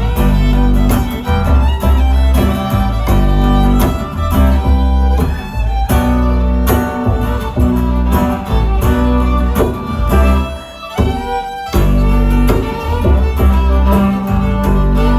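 Fiddle, guitar and bass playing an instrumental passage of a song, with a steady bass line underneath; the playing briefly drops back about eleven seconds in.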